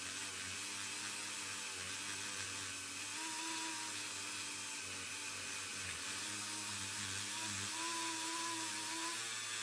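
Handheld rotary tool spinning a buffing wheel against a zinc diecast car body: a steady high-speed whir with a hiss, its whine shifting in pitch now and then as the wheel works the metal.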